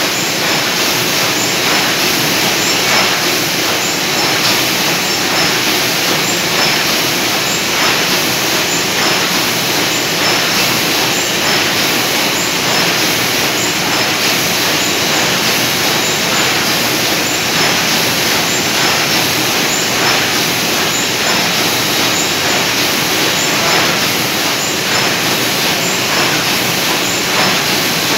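Sheet-fed offset press printing tinplate sheets, running steadily: a dense, even mechanical noise with faint repeated knocks.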